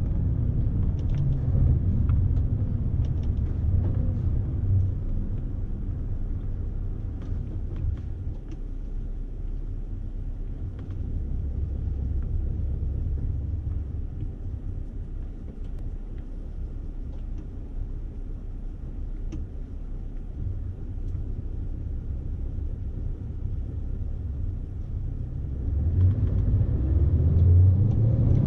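Scania S520's V8 diesel engine heard from inside the truck's cab as it drives: a steady low rumble that eases off through the middle, then grows louder and rises in pitch near the end as the truck accelerates.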